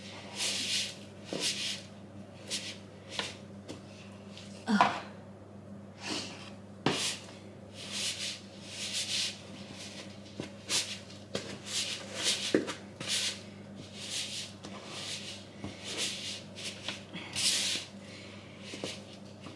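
A wooden spoon scraping and mashing butter and dark brown sugar in a mixing bowl, in uneven strokes about once a second, with an occasional knock of the spoon against the bowl. The butter is too firm to cream easily by hand.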